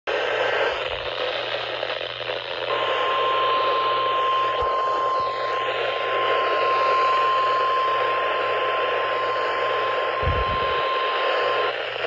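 Midland NOAA weather radio's speaker hissing with static while it plays one long, steady, high alert tone for about nine seconds, starting about three seconds in. The tone is the broadcast warning alarm tone that announces a weather warning. A brief low handling bump comes near the end.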